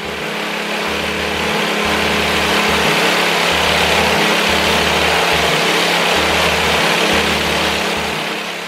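Small Matsumoto 7.5 HP petrol engine running steadily as it drives the Mahkota MDM 9-21 grain mill, fading out near the end.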